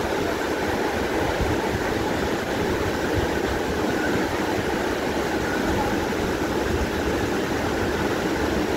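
Steady roar of a large waterfall's falling water, an even rushing noise that holds at one level throughout.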